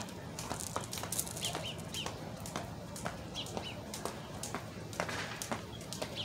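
Jump rope being skipped on a concrete sidewalk: the rope slapping the ground and shoes landing in a steady rhythm of about two a second. Small birds chirp faintly a few times in the background.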